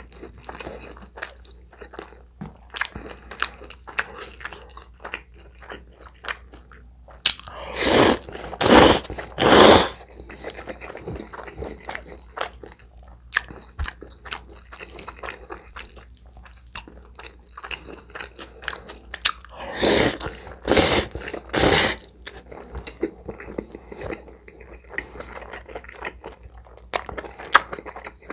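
Close-miked eating: steady chewing of spicy spaghetti with many small wet mouth clicks. Twice, about 8 seconds in and again about 20 seconds in, three loud slurps of noodles come in quick succession.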